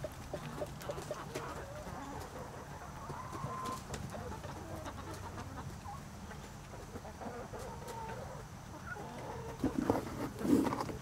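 A flock of backyard chickens clucking in short, scattered calls as they forage, with a louder burst of calls near the end.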